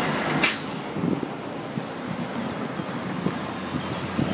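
Wind blowing across the microphone, with a brief loud rush about half a second in, over a steady background hiss and rumble.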